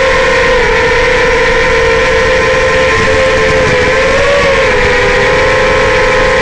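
Quadcopter's Racerstar BR2205 2600KV brushless motors spinning 5-inch three-blade propellers: a steady multi-tone whine whose pitch wavers slightly with throttle, dipping and rising a little around four to five seconds in.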